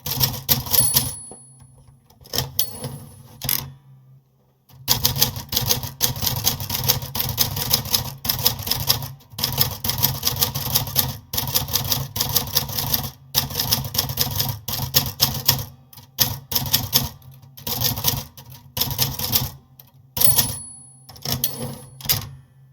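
Typewriter typing: quick runs of key strikes broken by short pauses. There is a brief high ring once about a second in and again near the end.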